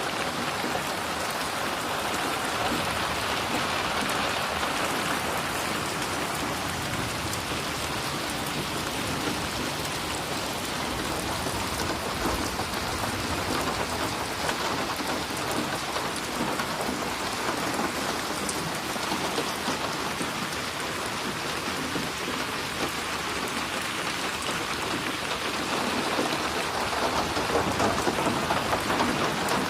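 Steady rain falling and splattering on surfaces, an even dense hiss of drops, growing a little louder near the end.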